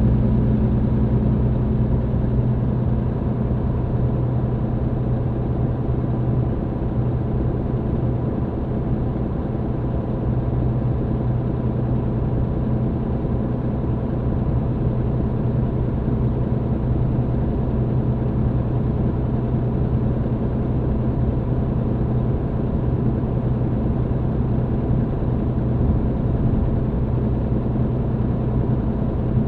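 A MAN TGX truck's diesel engine running steadily while driving, heard inside the cab with road noise. The lowest drone eases slightly about six seconds in.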